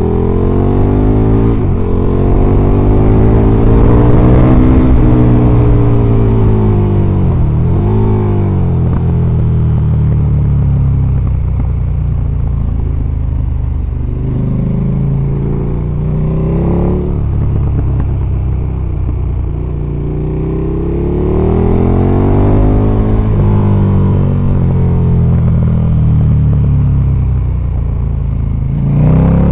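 KTM 1290 Super Duke R's V-twin engine under way, its pitch climbing as the throttle is opened and falling away as it is closed, several times over.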